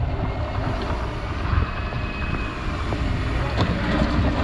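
Doosan wheeled excavator's diesel engine running steadily under load, putting out black smoke as the upper structure swings round.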